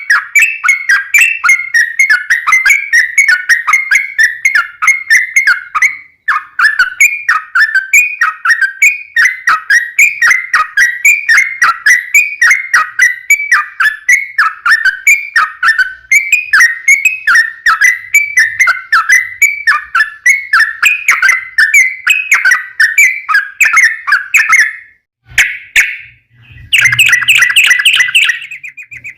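Yellow-vented bulbul (trucukan) song: a long, fast run of short, bubbling whistled notes, several a second, the long 'ropel' rolling song used to lure other bulbuls into answering. It breaks off briefly near the end, then comes back as a louder, denser burst with a low thump under it.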